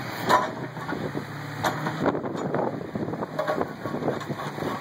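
Bobcat 337 mini excavator's diesel engine running steadily, with sharp knocks and clanks from the machine, the loudest just after the start and another under two seconds in.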